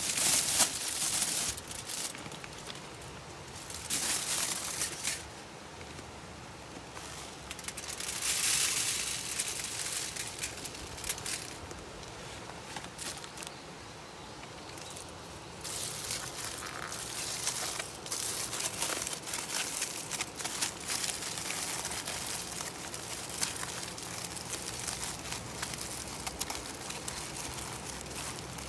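A sheet of aluminium foil crinkling as it is handled, in several bursts, then lighter crackling as it is folded into a tray around loose wood smoking chips, which rustle and shift inside it.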